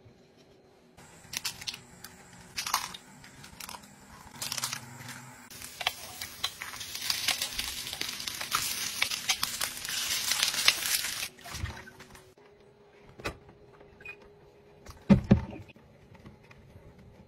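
Eggs frying in oil in a four-cup egg pan, sizzling and crackling, loudest in the middle and then stopping abruptly. This is followed by a few separate knocks and taps, one loud thump near the end.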